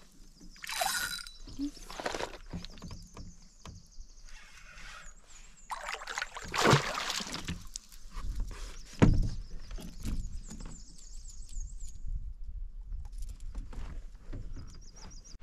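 Spinning reel being cranked while a fish is fought and landed from a canoe. The high whir runs most of the way and stops near the end, and two louder thumps come a couple of seconds apart past the middle.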